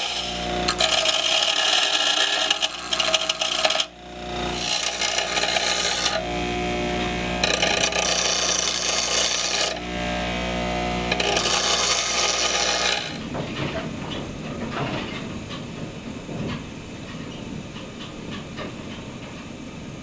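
Bench grinder running with a steady motor hum while a brass acorn nut held in pliers is pressed to the wheel in four grinding passes of a few seconds each, grinding down its hex end flat. About 13 seconds in the motor hum stops, leaving quieter irregular scraping and handling noise.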